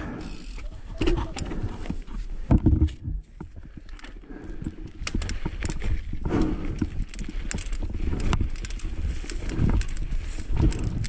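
Mountain bike rolling over a dry dirt singletrack: tyres crunching on dirt and loose stones, with frequent clicks and rattles from the bike and a low rumble from the bumps. A heavier thump stands out about two and a half seconds in.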